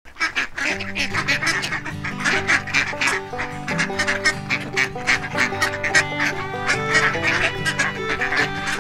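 Geese and ducks honking and quacking over background music with held, stepping notes.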